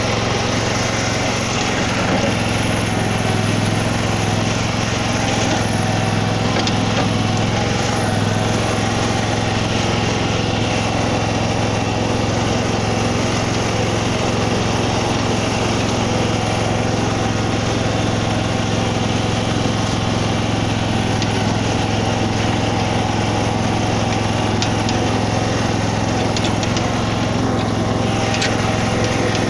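Ride-on bunker rake's small engine running steadily as it drives across a sand bunker, with an even, unbroken hum.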